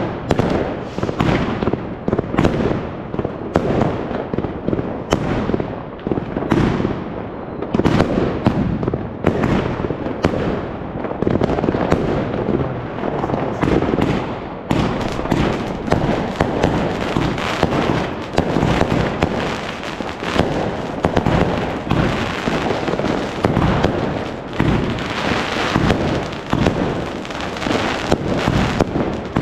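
Massed fireworks and firecrackers going off continuously, a dense barrage of overlapping bangs and crackles with no pause.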